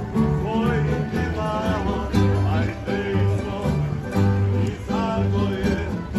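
A small live acoustic string band playing a lively tune: plucked strings carrying the melody over a steady bass line.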